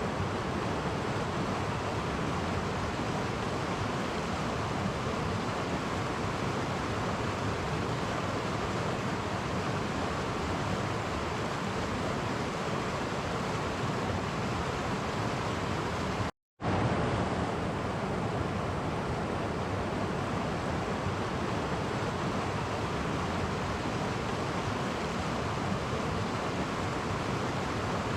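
Clear stream flowing over small cascades: a steady, even rush of water that cuts out to silence for a split second a little past halfway.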